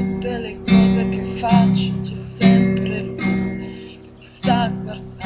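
Acoustic guitar strummed in chords, about six strums a little over a second apart, each left to ring, with a woman's voice singing along.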